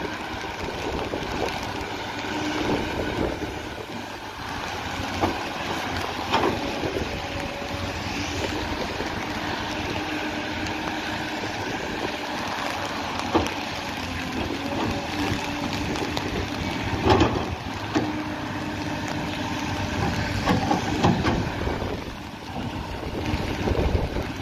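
Case 9030B hydraulic excavator running and working its boom, arm and bucket: a steady diesel engine note with a whine that comes and goes as the hydraulics are used, and a few sharp clanks from the arm and bucket.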